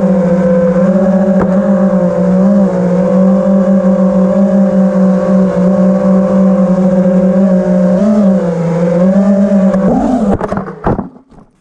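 FPV quadcopter's motors and propellers whining steadily in flight, the pitch dipping and swelling slightly as the throttle changes. About ten seconds in the quad hits a tree: the whine wavers and cuts out, followed by a few sharp clattering knocks, the loudest near the end, as it tumbles down.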